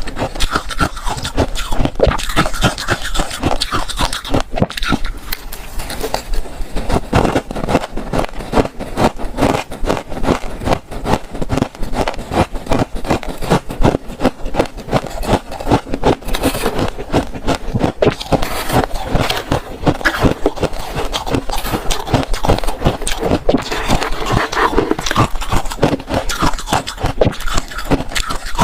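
Close-miked crunching and chewing of freezer frost: a dense, unbroken run of rapid crisp crunches.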